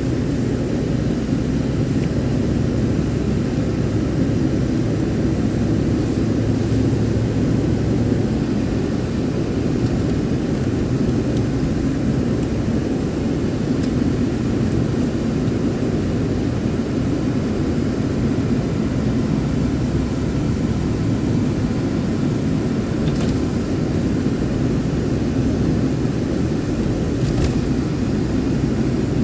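Steady road and engine noise from inside a moving car's cabin: an even low rumble of tyres and engine with no changes in speed. Two faint clicks come in the last few seconds.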